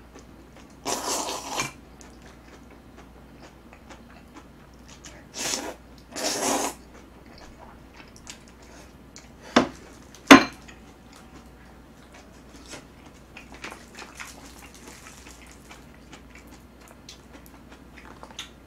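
Jjajangmyeon noodles slurped up from tongs three times, about a second in and twice around five to six seconds. Near ten seconds, two sharp clicks of the tongs against a ceramic bowl are the loudest sounds, followed by faint chewing and small utensil ticks.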